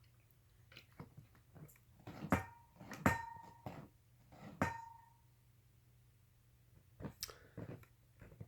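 Scattered light clicks and knocks, with three sharper knocks about two, three and four and a half seconds in that each ring briefly.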